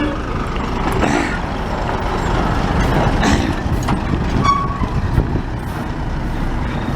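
A heavy vehicle's engine running steadily, with the rumble holding through the whole stretch.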